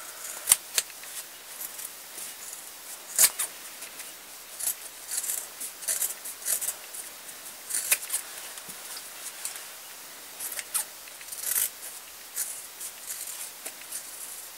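Fabric scissors trimming the seam allowance around a sewn pouch made of several layers of thick fabric and volume fleece: irregular crisp snips, with a few sharper, louder clicks.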